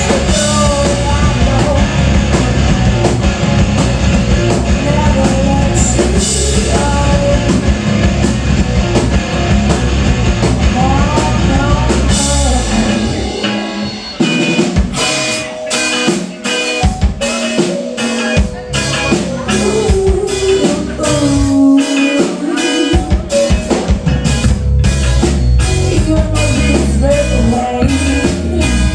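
Live rock band playing: a female lead voice singing over electric guitars, bass guitar and a drum kit. About halfway through, the bass and low end drop away for several seconds, leaving sharp drum hits and the voice, before the full band comes back in.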